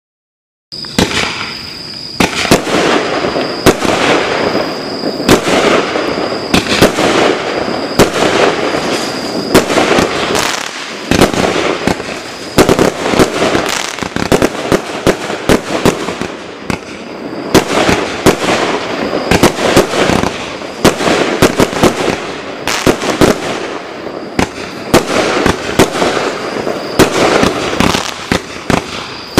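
Nova Pyrotechnics Firestorm fireworks cake, a 75-shot barrage of 20, 25 and 30 mm shells, firing continuously. It starts abruptly about a second in with many sharp shots in quick succession over a steady crackling hiss.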